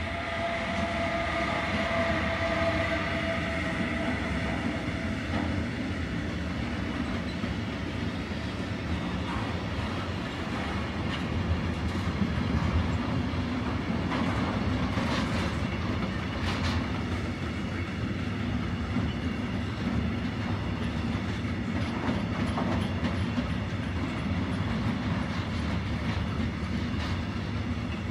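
A train running past, its wheels rumbling and clacking over the rail joints in a steady stream. A whine of a few steady tones is heard over the first few seconds and fades away.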